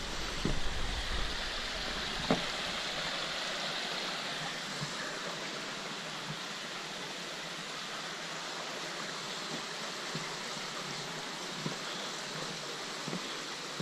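Creek water rushing steadily over rocks, with scattered footstep knocks on wooden footbridge planks, the sharpest about two seconds in.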